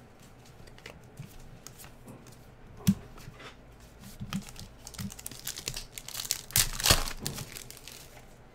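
Trading cards flicked and shuffled in the hands with small clicks, then a foil card-pack wrapper crinkling and tearing open about six to seven seconds in, the loudest sound here.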